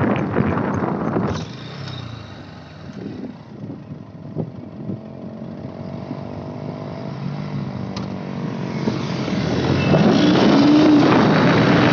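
Bajaj Pulsar NS 125's single-cylinder engine running at road speed under heavy wind rush on the microphone. The wind noise drops away about a second and a half in, leaving a steady engine hum. The rush builds back loud near the end as the engine pitch rises.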